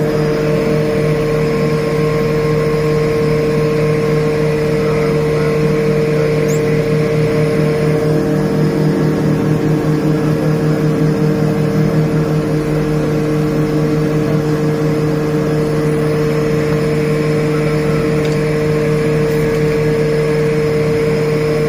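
Engines and propellers of a small twin turboprop airliner, heard from inside the cockpit as a steady drone with a strong humming tone. They run at even power while the aircraft is on the runway.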